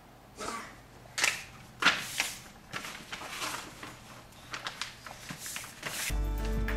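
Large sheet of paper rustling and crinkling in irregular bursts as it is folded and pressed flat by hand. Music starts near the end.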